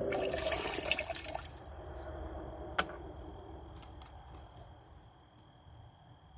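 Groundwater running from a bladder pump's discharge tube and splashing onto the sink's grate during a discharge pulse, loudest at first and fading away as the pulse ends. A single sharp click comes a little before halfway.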